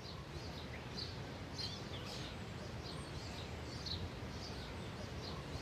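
Faint birdsong: short, high chirps repeating every fraction of a second over a steady low hum.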